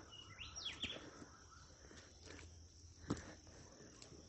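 Faint footsteps of hikers walking, a few scattered steps, with a short rising bird chirp about half a second in.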